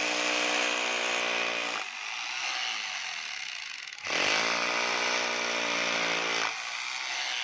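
Electric hammer drill boring into a plastered masonry wall. It runs under load, eases off just before two seconds in, then picks up again with a rising motor whine just past four seconds and eases once more near the end.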